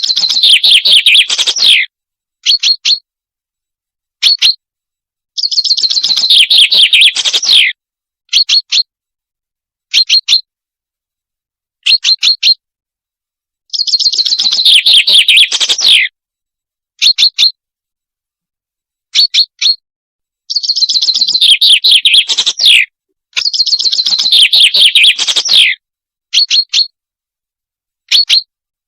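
Songbird singing in a repeating pattern. Phrases of fast trilled notes about two seconds long come every few seconds, with short sharp double chirps between them.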